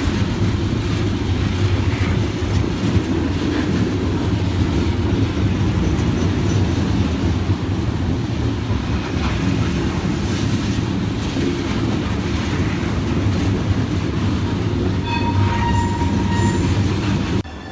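Loaded CSX coal hopper cars rolling past at close range: a steady heavy rumble of steel wheels on rail, with a brief high squeal about fifteen seconds in. The rumble cuts off abruptly near the end.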